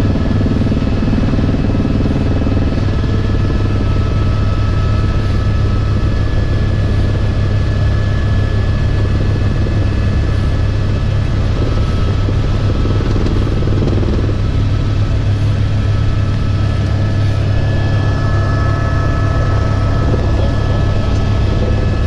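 Helicopter in flight heard from inside the cabin: a steady low rotor and engine drone with a constant high turbine whine.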